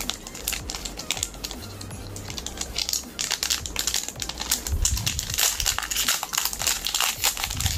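Foil booster-pack wrapper crinkling and crackling as hands work it open and pull it apart. It is sparser for the first few seconds and busier from about three seconds in.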